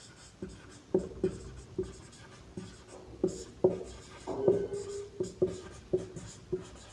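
Marker writing on a whiteboard: a dozen or so short, squeaky strokes, with one longer drawn stroke about four and a half seconds in.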